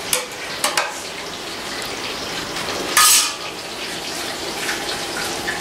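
Metal spoon scraping and tapping against the inside of a large metal cooking pot while spreading rice. There are a few light scrapes in the first second, then one louder clatter about three seconds in.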